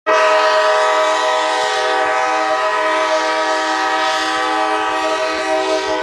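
Hockey goal horn: one loud, long air-horn blast, a chord of several tones that starts abruptly and holds steady.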